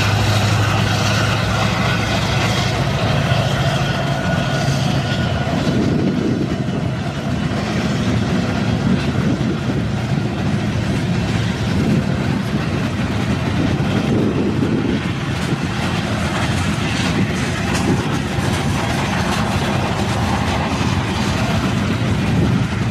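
Union Pacific diesel-electric freight locomotives passing close by, their engines droning. After a few seconds this gives way to the steady rumble and rhythmic clatter of the freight cars' wheels rolling over the rails.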